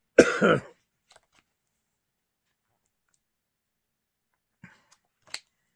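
A short vocal sound from a man, then near silence broken by faint paper rustles and one sharp snap near the end as the pages of a glossy booklet are turned.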